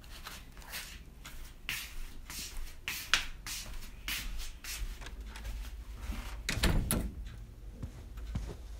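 Slippers scuffing on a wooden floor in a series of shuffling footsteps, then a heavier handling noise and small clicks as a round doorknob is grabbed and turned near the end.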